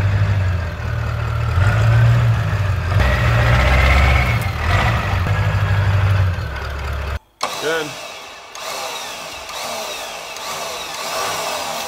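Ford F-350's 7.3 Powerstroke V8 diesel engine idling with a steady low hum. It cuts off abruptly about seven seconds in, leaving quieter outdoor sound with faint chirps.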